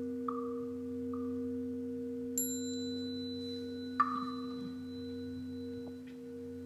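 Buddhist ritual instruments in a temple hall: a few soft struck knocks with short ringing tails, and a single high-pitched bell ping about two and a half seconds in that rings on for a couple of seconds, over a steady low hum.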